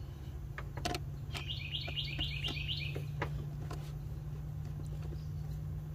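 A bird calling a quick run of about seven chirps about a second and a half in, over a steady low hum and scattered light clicks.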